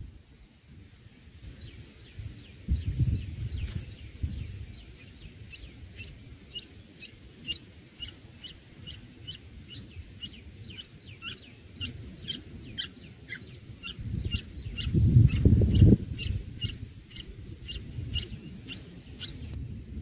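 Red-whiskered bulbuls at the nest chirping: short, high, falling chirps repeated about twice a second. Under them runs a low rumble about three seconds in and a louder one around fifteen seconds in.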